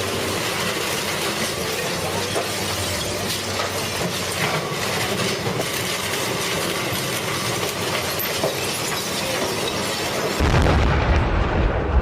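Industrial car shredder tearing up old cars: a loud, dense clatter of crashing and tearing metal, full of sharp knocks and bangs. About ten seconds in it changes abruptly to a deeper, heavier rumble.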